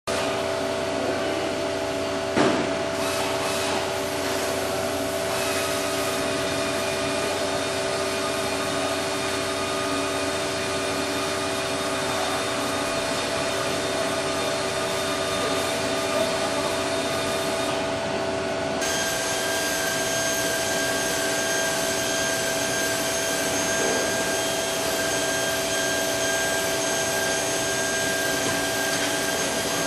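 Amada Wasino Meister G3 CNC surface grinder and its automatic loader running: a steady motor hum and whir with several constant tones. About 19 s in, the low rumble drops away and a higher whine comes in, a change in what the machine is running.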